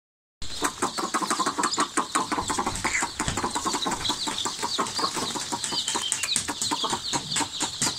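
Hundreds of young chicks peeping together in a brooder: a dense, unbroken chorus of short high chirps, starting about half a second in.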